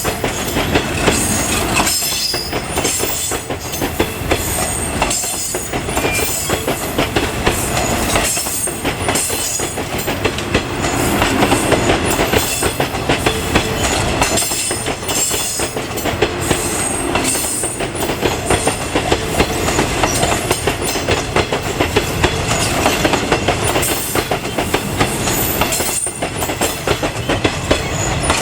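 Train rolling past on the track, its wheels clattering over the rail joints with a steady run of clicks and some wheel squeal.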